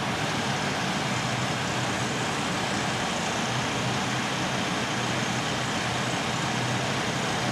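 Steady engine and road noise of a motor vehicle, an even rushing with a low hum underneath.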